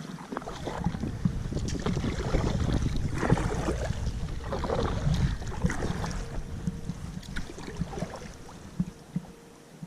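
Kayak being paddled: irregular swishes and splashes of the paddle in the water under wind rumbling on the microphone. Quieter near the end.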